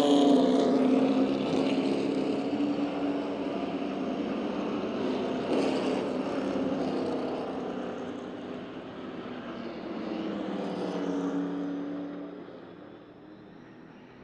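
A pack of short-track stock cars racing past close by at full throttle. The engines fade as the pack runs away down the track, swell again about ten seconds in, then fade out.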